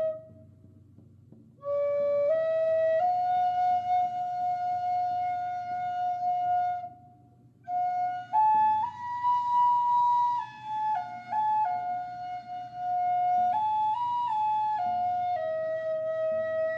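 A flute playing a slow melody of long held notes with a bright, fairly high tone. It stops for a breath just after the start and again about halfway through. The melody steps up to its highest notes around ten seconds in, then eases back down.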